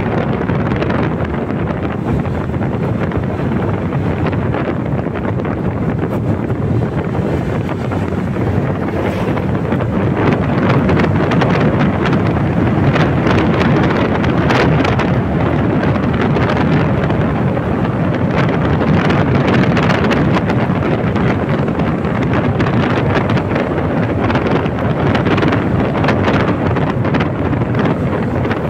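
Steady rush of wind buffeting the microphone on a moving Honda Click 125i scooter, with the scooter's running and tyre noise on the concrete road blended underneath.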